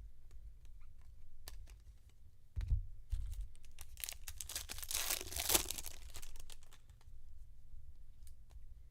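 Trading card pack wrapper being torn open and crinkled, loudest for about two seconds in the middle, with scattered light clicks and a low knock a little before.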